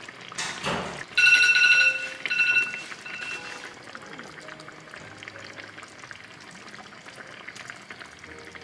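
A short whoosh, then a bright ringing tone that sounds three times, fainter each time, over soft background music. After it comes a faint crackle of the coconut-milk sauce simmering in the pan.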